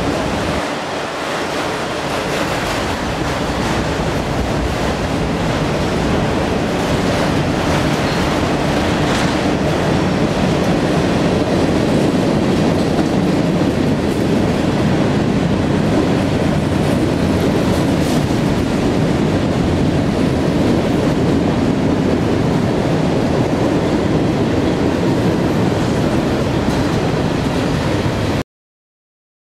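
A CSX freight train of autorack and covered hopper cars rolling across a steel girder bridge overhead: a steady, loud rumble of wheels on rail with clatter. It cuts off abruptly near the end.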